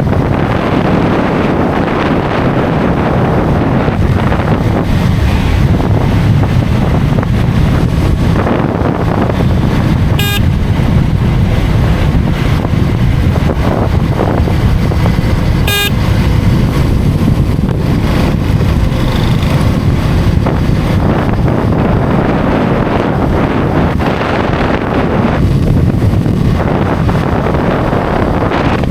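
Heavy wind rushing over the microphone with motorcycle engine and road noise at highway speed. Two short vehicle horn toots sound about ten and sixteen seconds in.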